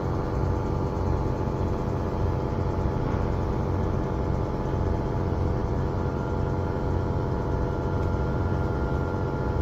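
An engine idling steadily, a continuous low drone with a faint higher whine joining about six seconds in.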